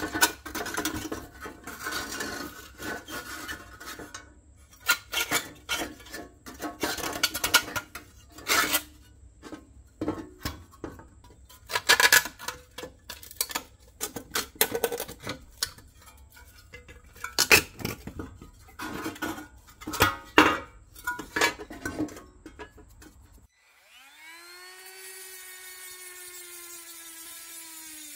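Rusty pressed-steel parts of a 1959 Tonka dragline toy being handled and pried apart: irregular metal clanks, knocks and scraping. Near the end a cordless rotary tool starts and runs with a steady whine, its grinding stone held against a rivet on the toy's lattice boom.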